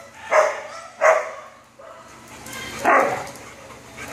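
Dogs barking during rough play: three short barks, the first two close together, the third about two seconds later.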